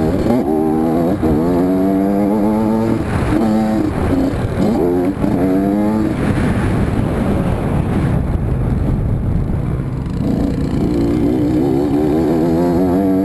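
Honda CR80RB's 80cc two-stroke single-cylinder engine under riding load, revving up in several rising pulls as it goes through the gears and easing off for a few seconds around the middle. Low wind rumble on the bike-mounted camera runs underneath.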